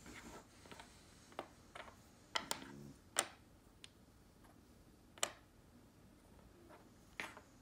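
Small pine wooden blocks being picked up and set down on a wooden tabletop as they are stacked, giving a handful of light wooden clicks and knocks a second or two apart.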